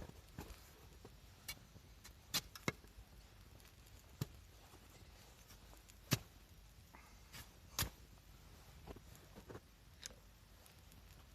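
Wood campfire crackling faintly: irregular sharp pops, about one every second or two, over a faint steady hiss.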